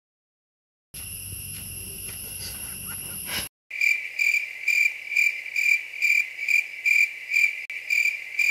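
A cricket chirping in regular, evenly spaced chirps, about three a second, starting about four seconds in. Before that there is a moment of dead silence, then a steady faint hiss.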